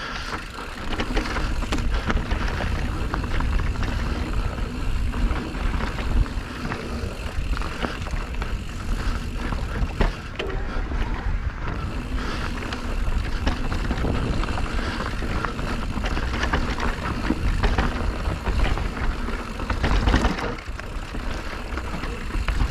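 Electric mountain bike riding down a dirt trail: a steady rush of wind on the microphone and tyre roll, with frequent short knocks and rattles from the bike going over bumps.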